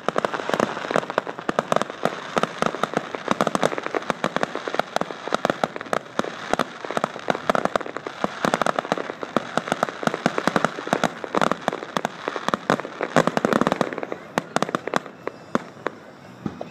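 Fireworks display: a rapid, dense string of aerial shell bangs and crackling, thinning out near the end.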